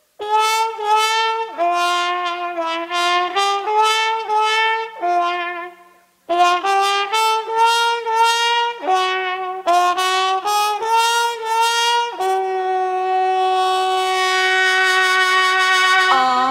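Solo trumpet playing a bluesy melody with vibrato in short phrases, breaking off about six seconds in and then coming back. It ends on a long held note while a rising swell builds underneath.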